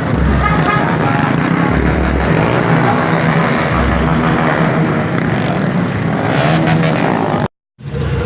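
Motorcycle engines revving over crowd noise, with a deep beat pulsing about every two seconds underneath. The sound cuts out briefly near the end.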